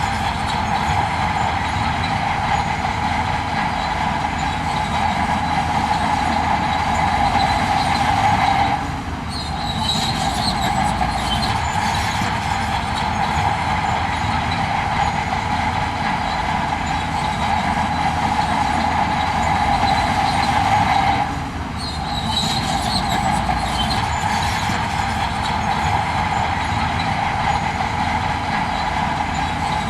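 Heavy earthmoving machinery working, most likely a bulldozer: a steady diesel rumble under a continuous high metallic squeal from its tracks, which eases off briefly twice, about nine and twenty-one seconds in.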